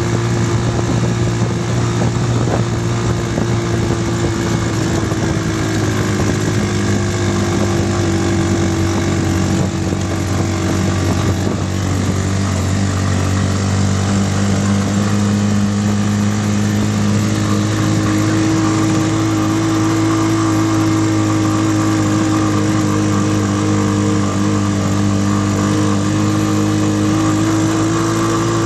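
Engine of an open-sided off-road vehicle, heard from on board, running steadily while it drives along a bumpy dirt track, its pitch drifting a little as the speed changes.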